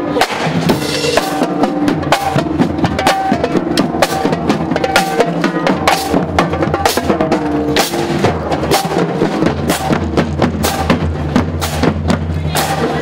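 Marching band playing as it marches: the drumline (bass drums, snares and cymbals) strikes a steady beat of about two strokes a second, under sustained low notes from brass including sousaphones.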